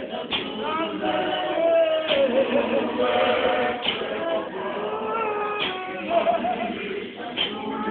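A congregation of men and women singing together in unison, with held notes. A sharp beat is struck about every one and three-quarter seconds.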